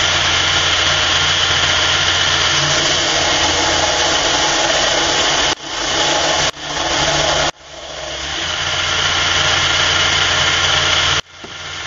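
Burr King belt grinder running steadily, a hissing belt over a low motor hum, as a steel knife blade is ground against the belt to taper it. The sound drops away abruptly four times and builds back up over a second or so each time.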